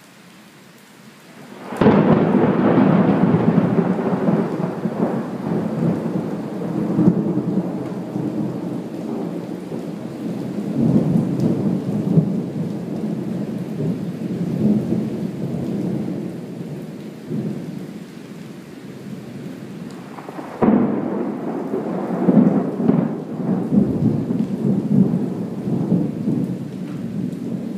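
Thunder over steady rain: a sudden loud crack about two seconds in that rolls on as a long rumble, and a second sudden clap about twenty seconds in that rumbles on in the same way.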